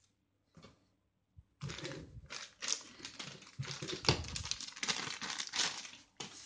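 Packaging being handled by hand: after a faint click or two, a dense run of crinkling, rustling and clicking that lasts about four and a half seconds.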